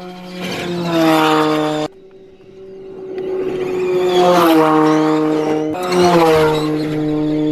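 Audi RS Q e-tron E2 rally car driving by in three quick passes, each a swelling rush that falls in pitch, over background music with held chords. The first pass cuts off abruptly about two seconds in.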